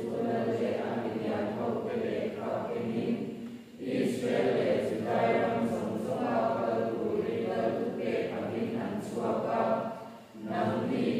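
A congregation's many voices in unison, in long phrases with a short break about four seconds in and another near the end.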